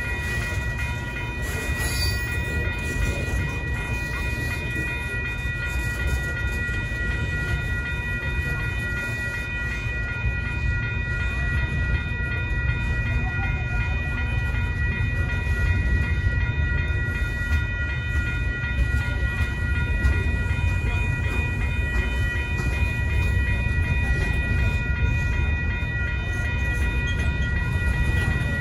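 Freight train boxcars rolling steadily through a railroad crossing, with a continuous rumble of the wheels on the rails. A grade-crossing bell rings steadily over it the whole time.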